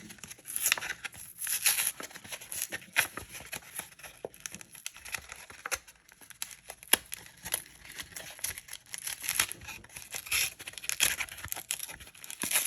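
Foil trading-card booster pack wrapper crinkling and being torn open, in irregular bursts with sharp clicks.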